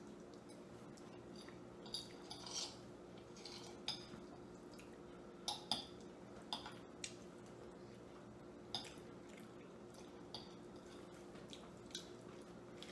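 Metal forks tapping and scraping on ceramic dinner plates during a meal: scattered soft clicks every second or two over a faint steady hum.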